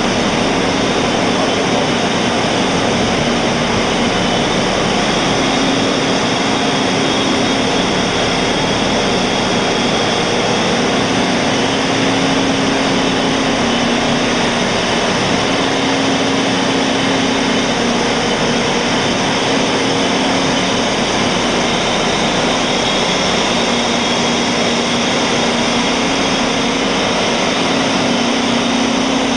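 Steady, loud drone of ship's machinery, such as engines, pumps and ventilation fans, running aboard a tanker, with a low hum that swells and fades every few seconds.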